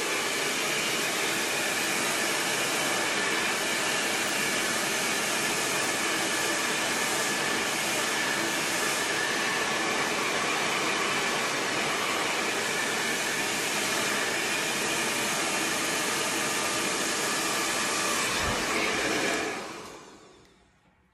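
Handheld hair dryer blowing steadily, with a whirring hum, through hair held up on a round brush. It is switched off near the end and fades away over a second or so.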